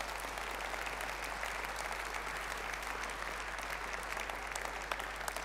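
Audience applauding steadily, many hands clapping, easing off slightly near the end.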